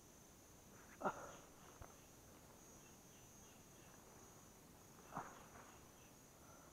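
Faint, steady high-pitched insect chirring, with two brief knocks, the louder one about a second in and a softer one about five seconds in.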